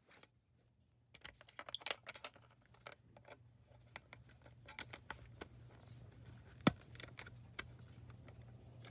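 Scattered light clicks and taps of a disassembled First Alert SA304 smoke alarm's plastic housing and parts being handled, starting about a second in, with one sharper click about two-thirds of the way through.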